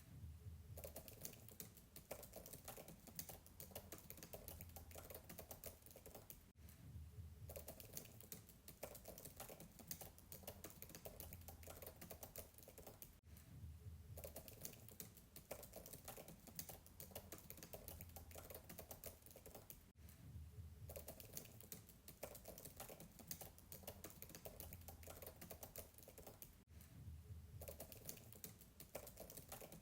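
Fast typing on a MacBook keyboard, faint and distant: a steady stream of soft key clicks. Short pauses break it about every six or seven seconds.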